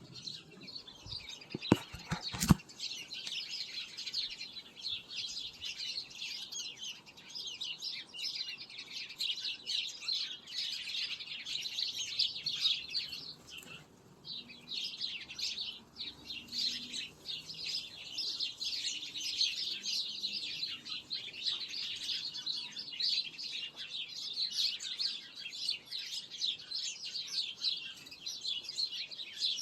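Many small birds chirping at once, a dense, continuous chorus of short high chirps. A few sharp knocks sound about two seconds in.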